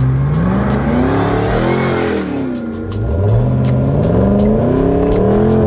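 Supercharged 6.2-litre LT4 V8 accelerating hard, its exhaust note rising in pitch, easing off about two seconds in, then climbing again.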